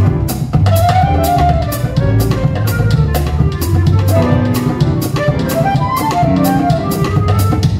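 Small jazz combo playing: a clarinet carries a moving melody over plucked upright bass and piano, while a drum kit keeps a steady beat of even cymbal and drum strokes.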